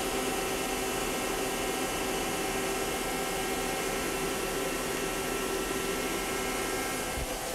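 Powered-up Star SV-32J CNC Swiss-type lathe and its bar feed standing at idle: a steady hum and hiss with a few faint steady tones.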